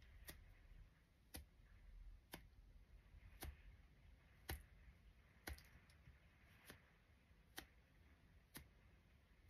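Near silence with faint, sharp ticks, evenly spaced about once a second.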